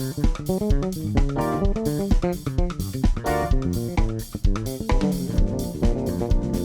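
Instrumental trio music with a drum kit (bass drum, snare and cymbals) keeping a busy beat under guitar lines, moving to longer held chords about five seconds in.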